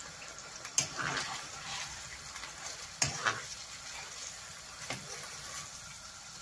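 Marinated chicken pieces sizzling in hot oil and ghee in a wok as a metal spoon stirs and turns them, with a few sharp clicks of the spoon against the pan.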